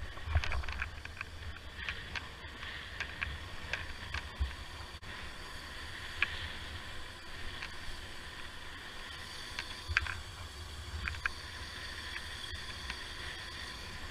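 Wind rumbling over a helmet-mounted camera's microphone while riding along a road, with scattered sharp clicks and rattles and a faint steady high whine underneath.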